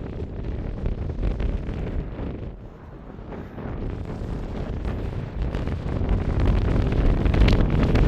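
Gusty mountain wind buffeting the microphone with a low rumble, easing briefly about three seconds in and then building to its strongest near the end.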